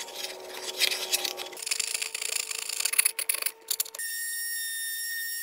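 Irregular scratching and clicking of hand work on a wooden board. About four seconds in, it gives way abruptly to the steady high-pitched whine of an electric sander clamped upside down in a workbench, with a wooden disc pressed against its pad.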